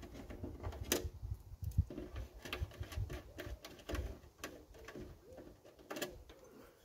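Light, irregular metallic clicks and ticks as small screws on the top of a titanium wood stove are turned out by hand.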